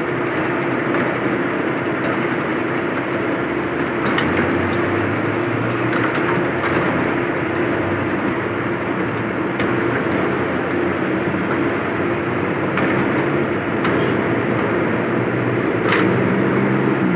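Diesel engine of an excavator running steadily, with a few short sharp knocks now and then.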